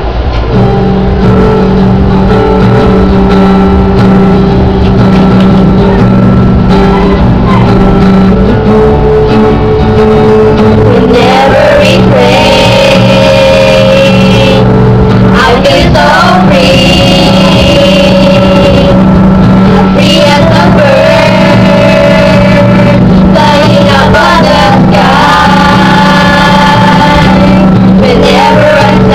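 Music: a steady held chord, joined about a third of the way in by a singing voice that carries on, phrase by phrase, to the end.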